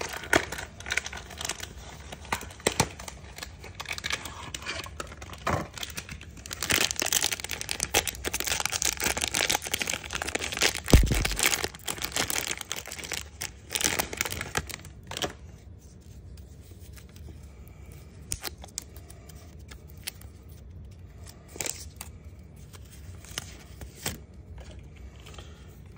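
Foil wrapper of a trading-card pack torn open and crinkled by hand: dense crackling and ripping, with one louder knock about eleven seconds in. After about fifteen seconds it turns quieter, with only scattered light clicks as the stack of cards is handled.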